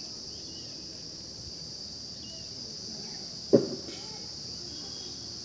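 Steady high-pitched drone of insects, with faint voices in the background. About three and a half seconds in comes one sudden, short, loud sound.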